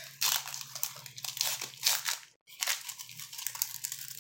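A trading-card pack wrapper being torn open and crinkled in the hands, in irregular rustling bursts with a very short gap a little past halfway.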